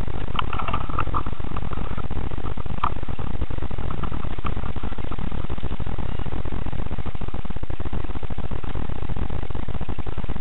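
Loud, steady, rough rumbling noise from a cheap action camera's microphone, with a few faint clicks about half a second in and again around three seconds in.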